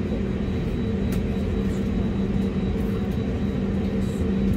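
Steady cabin noise inside an Airbus A320neo: a constant low drone from the engines and air system, with an even hum running through it.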